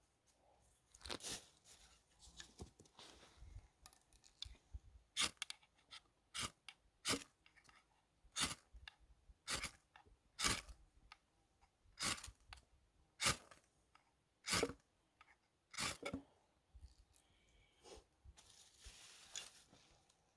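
A series of short, sharp rasps, roughly one a second with uneven gaps, from hand work on campfire tinder of wood shavings and a cotton wool ball.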